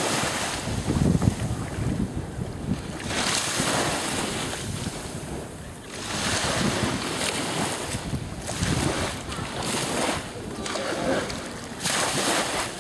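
Small waves washing onto a beach, with wind buffeting the microphone; the noise swells and eases every few seconds.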